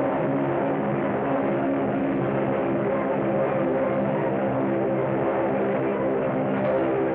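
Film score music: several notes sounding together, held and changing every second or so, at a steady level.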